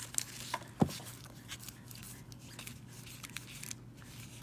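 Stack of sports cards in plastic sleeves being flipped through by hand: soft rustling and light clicks of card and plastic, with one sharper click about a second in, over a low steady hum.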